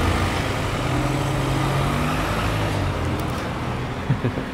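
Road traffic with a motor vehicle's engine running nearby: a low, steady hum that wavers a little in pitch over a noisy background. A couple of faint knocks come near the end.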